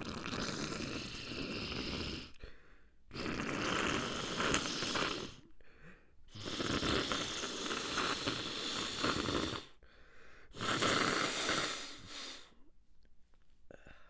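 A person breathing noisily through a congested nose, with a snore-like sound: four long breaths of two to three seconds each, separated by short pauses.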